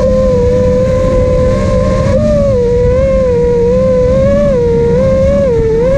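FPV quadcopter's brushless motors and propellers whining steadily, the pitch wavering up and down a little with throttle.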